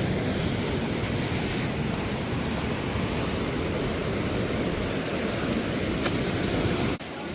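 Steady rushing noise of wind buffeting the microphone, with surf on a rocky beach behind it. It cuts off abruptly near the end.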